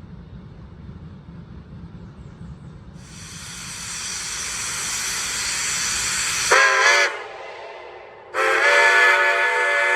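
Steam locomotive letting off steam with a building hiss, then sounding its chime whistle: one short blast, then a longer one.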